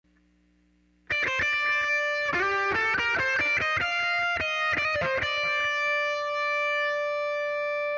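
Short intro jingle on guitar: a run of quick plucked notes starting about a second in, ending on a held note that rings on.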